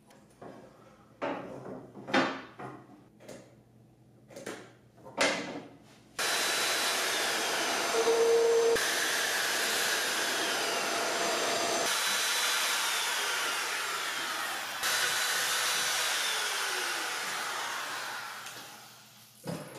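A few knocks and clatters in the first six seconds, then a router cutting mortises in red oak runs steadily with a high whine, and dies away near the end.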